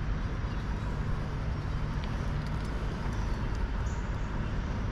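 Steady low rumbling outdoor background noise with a faint hiss and no distinct event.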